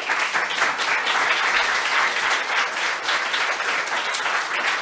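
Audience applauding: many hands clapping together at a steady level.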